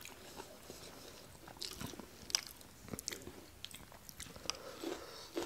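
Close-up chewing and crunching of food, faint, with a few short sharp clicks scattered through it.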